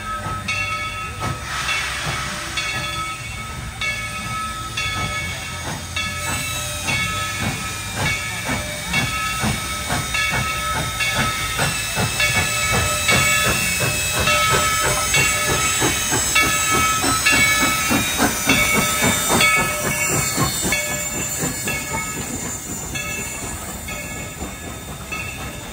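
Former White Pass & Yukon No. 70, a narrow-gauge steam locomotive, working with hissing steam and a steady beat of exhaust chuffs that quickens and grows louder past the middle, then eases off near the end. Bright ringing tones repeat through it.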